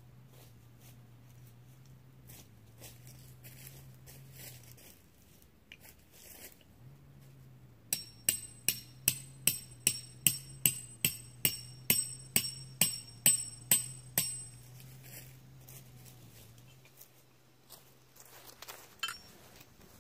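Metal hammer driving a steel tent peg into the ground to stake out a tarp: about twenty sharp, ringing strikes, roughly three a second, starting a third of the way in and stopping about six seconds later. Softer taps and handling noises come before and after.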